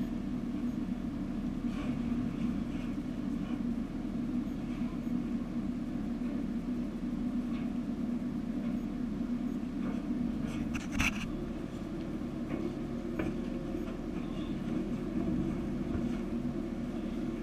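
Steady low drone of an engine running, with a brief sharp knock about eleven seconds in.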